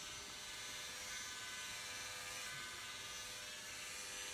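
Electric hair clippers running with a faint, steady buzz while cutting hair at the back of the head.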